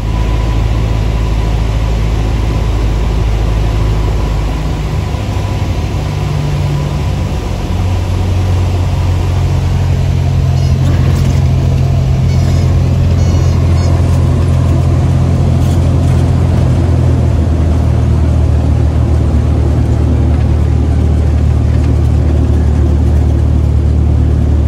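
Cessna 172's four-cylinder piston engine and propeller droning at reduced power, heard from inside the cabin during landing. The drone steps to a different pitch about eight seconds in and then holds steady.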